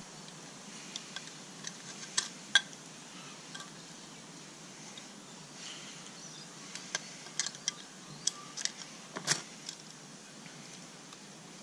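Scattered sharp metallic clicks and clinks of pliers working a small hose clamp off the fuel pump's rubber hose, with two louder clicks about two and a half seconds in and near nine seconds.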